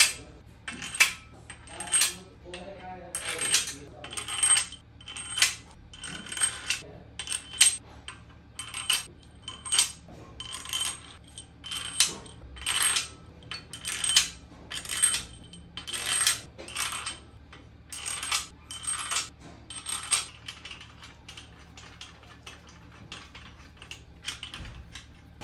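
Steel bolts clinking one after another as they are dropped and set into the main bearing caps over the crankshaft of a 4.4 V8 diesel engine block. The clinks are short and ringing, roughly one a second, and thin out in the last few seconds.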